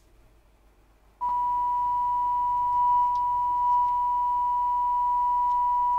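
A steady pure test tone of about 1 kHz, played through a Quad 44 amplifier, cuts in abruptly about a second in after near silence with only a low mains hum. A few faint ticks sound over the tone.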